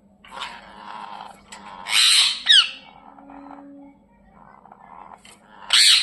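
Indian ringneck parrots squawking while fighting: two loud, harsh screeches, one about two seconds in with quick falling notes and one near the end, with softer chattering calls between.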